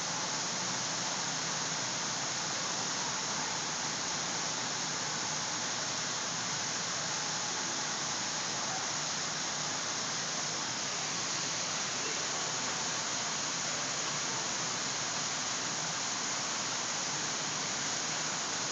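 Steady rush of a small artificial waterfall pouring into a pool: an even hiss of falling water that does not change.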